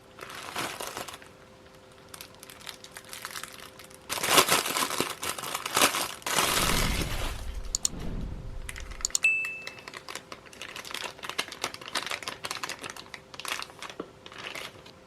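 Plastic packaging crinkling and rustling as it is handled and opened, with many small clicks and taps; the busiest stretch comes about four to nine seconds in.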